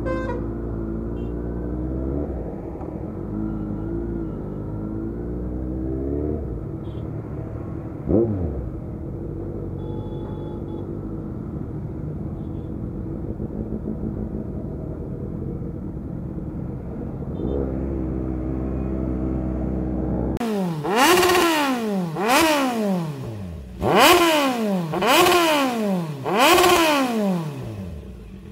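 Motorcycle engines idling in a traffic jam, a steady low rumble with one quick rev about eight seconds in. About twenty seconds in, a motorcycle engine gives five loud throttle revs, each rising sharply and falling away.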